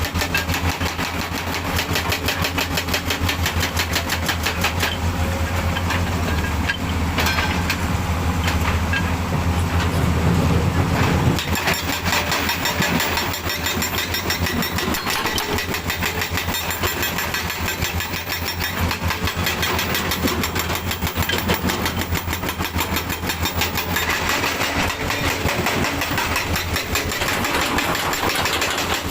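Heavy diesel engine running steadily with a fast, even pulse; its deep low hum fades about eleven seconds in while the engine keeps running.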